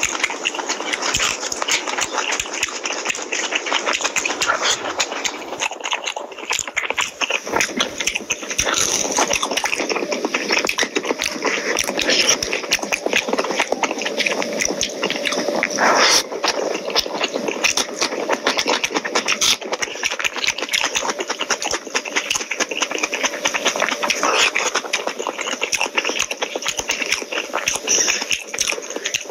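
Close-miked eating sounds: a hand squishing and mixing rice with curry on a steel plate, with wet chewing and smacking. Many small clicks and crackles run on without a break.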